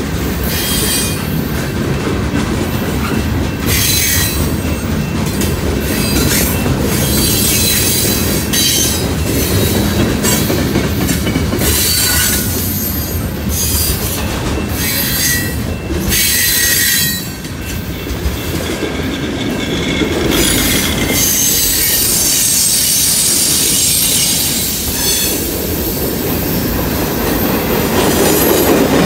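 Freight cars of a Canadian National train rolling past at close range: a steady loud rumble and clatter of steel wheels on the rails, with brief high squeals here and there.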